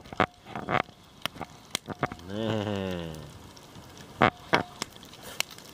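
Butter sizzling around trout fillets in foil packets on a grill over a campfire, with sharp crackling pops scattered throughout, the loudest about four seconds in. About two seconds in, a man's drawn-out voice sound lasts about a second.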